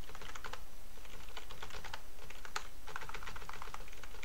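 Computer keyboard being typed in quick runs of keystrokes with short pauses between, a command and then a password entered twice, over a faint steady low hum.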